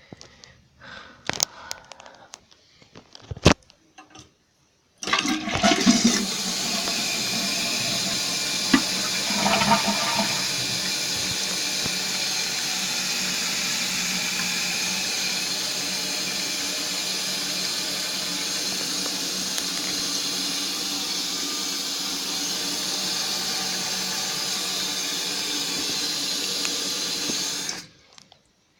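1995 Mansfield Alto toilet flushing, then a steady rush of water as the tank refills. It starts abruptly about five seconds in and cuts off suddenly near the end, after a few sharp clicks and knocks in the first seconds.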